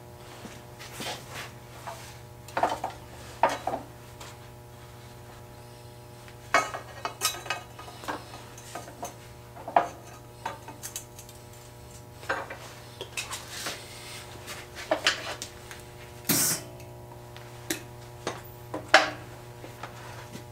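Irregular metallic clinks and knocks from steel box tubing and welding gear being handled and repositioned in a steel bench vise between MIG tack welds. A steady hum runs underneath.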